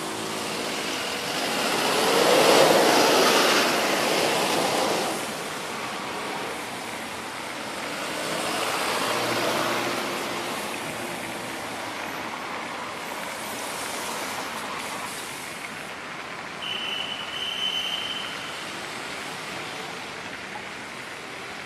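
Steady rain with cars passing through a wet intersection, their tyres hissing on the road; the loudest pass comes a few seconds in and a smaller one near the middle. A short high steady tone sounds about three quarters of the way through.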